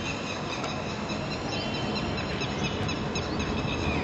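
Birds chirping, many short high chirps one after another, over a steady low background din.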